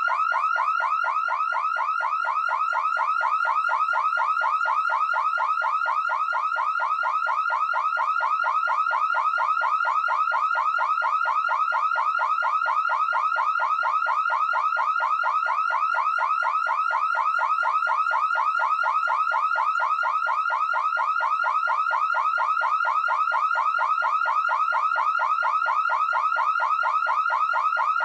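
Car alarm siren sounding a fast, steady, repeating rising whoop that does not change pattern.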